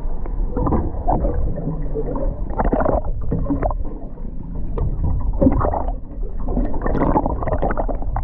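Water gurgling and lapping against a small fishing boat's hull over a steady low rumble, with scattered knocks and bumps.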